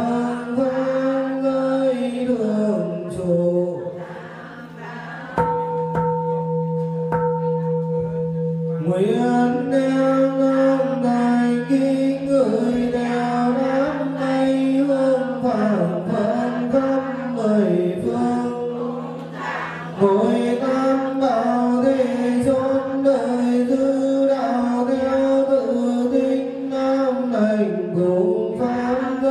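A group chanting a Vietnamese Buddhist liturgy in a slow, drawn-out melody over a low steady tone. The voices pause for a few seconds about four seconds in; during the pause a bell is struck once and rings steadily, and then the chanting resumes.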